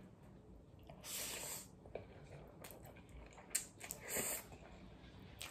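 Slurping cold spicy noodles (bibim-myeon) off chopsticks: two hissing slurps, about a second in and about four seconds in, with a few small clicks between.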